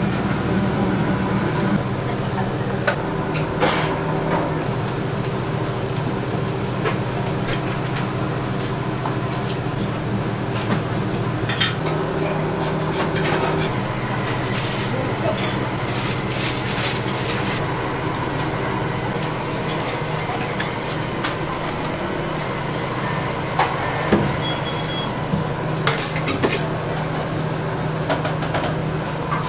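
Steady low hum of kitchen machinery with scattered clinks, clicks and knocks of utensils and dishes being handled.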